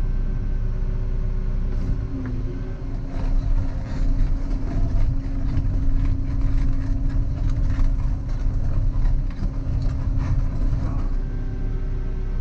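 Volvo EC140EL excavator's diesel engine running under load, picking up revs about two seconds in. A string of clunks and knocks follows until near the end, when it settles back to a steady run.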